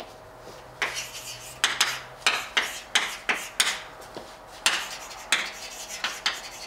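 Chalk writing on a blackboard: an irregular run of short, sharp taps and scrapes, about two a second, as letters and symbols are written.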